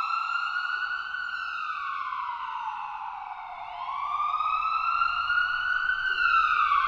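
Emergency vehicle siren wailing, its pitch slowly sweeping up and down and peaking twice.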